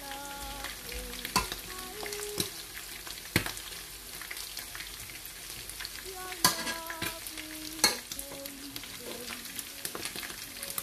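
Chicken pieces frying in a frying pan, a steady sizzle, with a metal slotted spatula knocking sharply against the pan or plate four times as more chicken is added.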